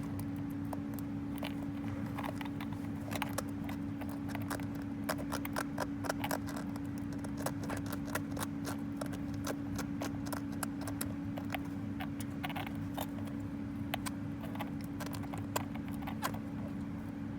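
Light, irregular clicking and scratching from a spectacled caiman hatchling working its way out of its egg, over a steady low hum.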